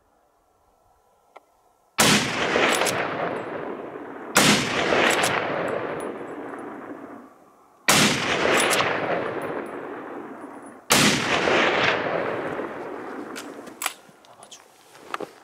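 Four rifle shots, the first about two seconds in, then spaced roughly two and a half to three and a half seconds apart. Each is a sharp crack followed by a long echo rolling back off the hillsides and dying away over a few seconds.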